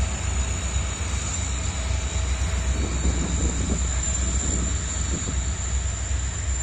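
A loaded goods train's wagons rolling past with a steady rumble of wheels on rails, over the continuous low drone of the twin WDG4 diesel locomotives' two-stroke EMD engines hauling it.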